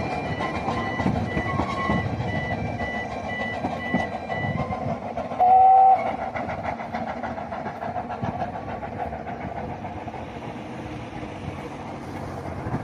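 Steam train running along the line with a steady rumble and clatter, and one short, loud whistle blast about five and a half seconds in.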